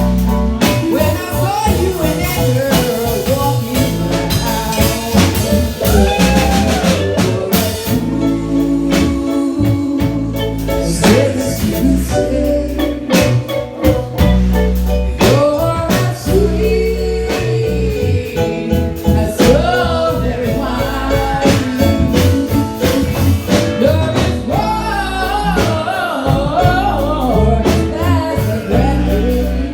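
Live reggae band playing a reggae arrangement of a soul ballad, with drums, bass and a melody line over them.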